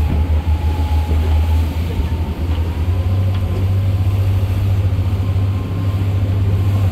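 Motorboat engine running steadily: a deep, even drone with a faint steady whine above it.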